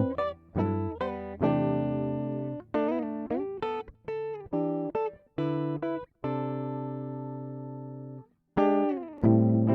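Background guitar music: plucked notes and chords, then a long held chord that fades and cuts off about eight seconds in. After a brief gap the playing starts again.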